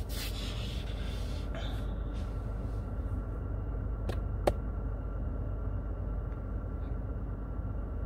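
Steady low hum in a truck cab, with a brief rubbing noise near the start and a single sharp click about four and a half seconds in.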